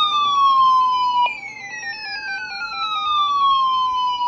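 Weather alert radios going off in alarm, signalling an incoming alert. A siren-like tone glides downward and restarts higher about every three seconds, over a second stepped, warbling alarm tone.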